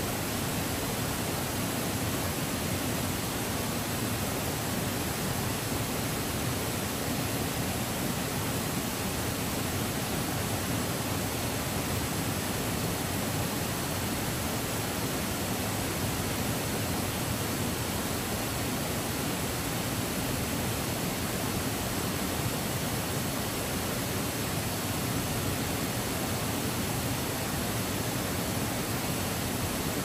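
Waterfall pouring: a steady, unbroken rush of falling water.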